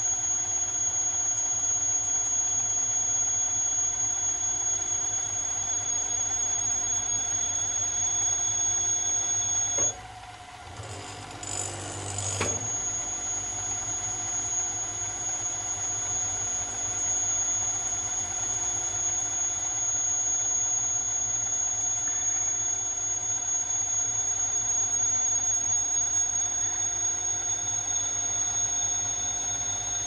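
CNC-converted Sieg Super X3 mill-drill running its spindle at about 800 RPM while a lathe tool turns a taper on a 6061 aluminum rod, a steady machine sound with a high-pitched whine. About ten seconds in, the whine stops and the sound drops for about two seconds. A click follows, then the same steady whine resumes.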